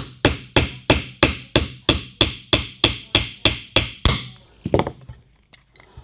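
A small hammer tapping the bolt head on a mobility scooter's front-wheel axle, driving the axle shaft through the wheel bearing: a steady run of sharp metallic taps, about three a second. The tapping stops about four seconds in, with one last tap a moment later, followed by faint handling clinks.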